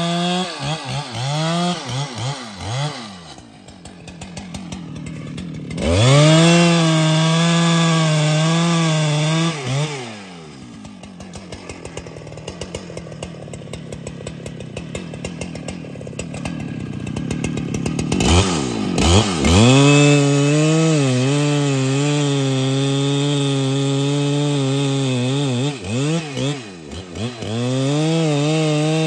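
Husqvarna 395XP two-stroke chainsaw switching between full throttle and idle as it cuts wood. It runs high and steady, drops to a ticking idle, revs back up about six seconds in and again about two-thirds of the way through, then holds full throttle with a couple of brief dips near the end.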